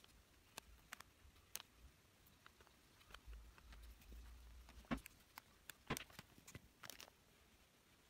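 Faint, scattered light clicks and taps of a painting brush being worked, the loudest a few seconds in, over near silence.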